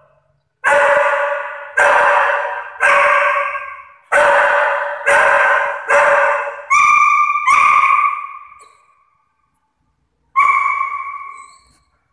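A dog barking repeatedly, about one bark a second, then once more near the end, each bark ringing on in a hard-floored echoing room; the later barks come out higher and more drawn-out. It is barking at a person wearing a horror-film nun mask.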